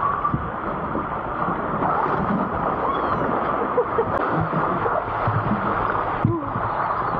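Water rushing down an open water slide as a rider slides through it, a steady noisy rush with low rumble, heard close on an action camera carried by the rider.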